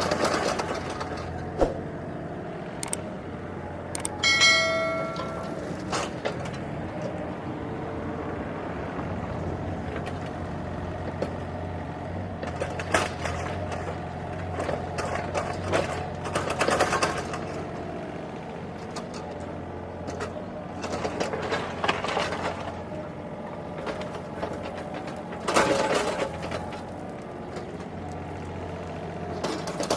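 Mini excavator's diesel engine running steadily while digging a narrow trench, with occasional knocks and busier stretches as the arm works. A short high-pitched tone sounds about four seconds in.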